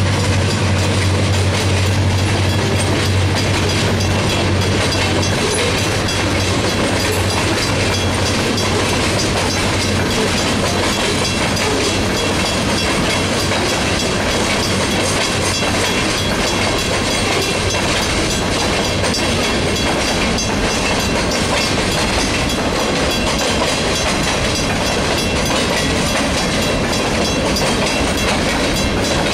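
Freight train passing: a low diesel locomotive engine drone fades out over the first five seconds or so, then the cars roll by with a steady clickety-clack of wheels over the rail joints.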